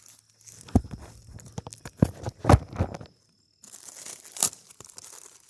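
Handling noise of a handheld camera: the microphone scraping and rustling against hands or clothing, with a few sharp knocks and a brief dropout to silence about three seconds in.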